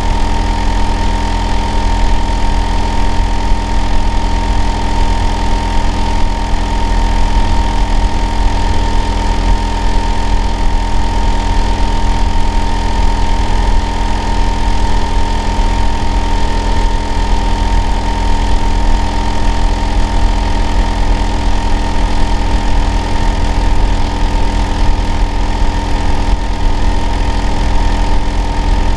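Hitachi air-conditioner outdoor unit running, a loud, steady low hum with a constant whine near 1 kHz above it, unchanging throughout.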